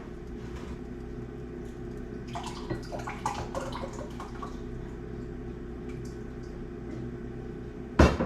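Kitchenware being handled while making soup: light clinks and knocks about two to four seconds in, then one sharp clank near the end, over a steady appliance hum.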